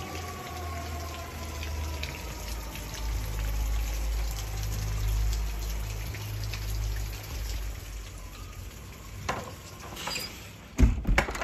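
Fire truck passing in the rain: its siren tone slides slowly down in pitch and fades over the first few seconds, while a low engine rumble lasts until about seven seconds in, over the steady hiss of rain. A few sharp knocks near the end.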